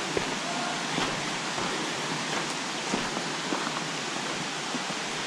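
Steady rush of flowing creek water, with a few faint clicks of footsteps on loose stones.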